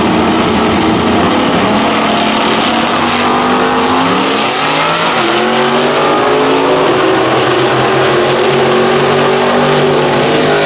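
Two drag-racing cars, a supercharged 1956 Chevrolet gasser and a Chevy Nova, launching and running flat out down the strip. Their engines are loud and rise in pitch again and again as they go up through the gears.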